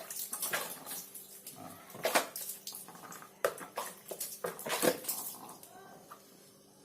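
Water splashing in short, irregular bursts as a rooster is washed by hand, with a couple of brief calls from the bird. The splashing dies away near the end.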